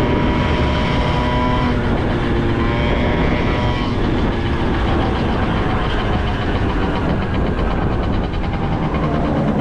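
Honda Topic moped engine running under way with a loud, farting exhaust note, its pitch shifting a few times as the throttle changes.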